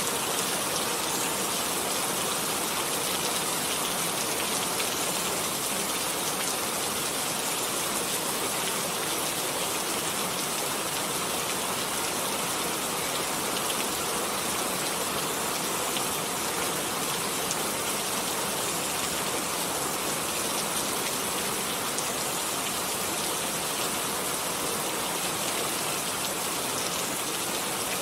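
Steady rain falling, a dense even hiss with fine patter of drops.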